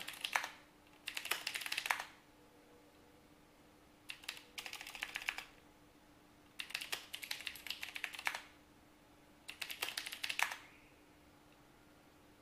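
Typing on a computer keyboard in four short runs of quick keystrokes, each a second or two long with pauses between, over a faint steady hum.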